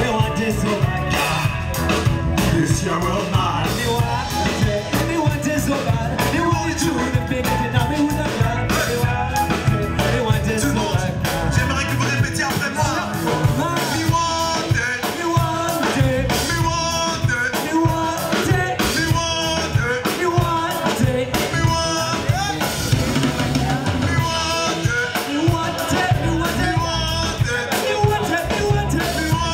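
Live band music: a drum kit, electric bass and keyboard playing, with a man's singing voice over them through the PA.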